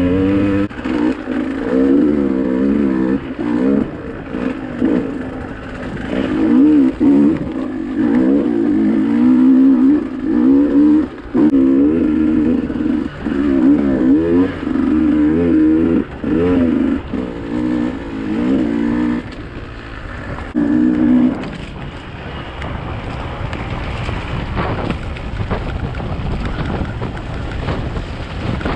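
Dirt bike engine revving up and down with the throttle, its sound breaking off briefly again and again. About three-quarters of the way through the engine sound stops, leaving a steady rushing noise.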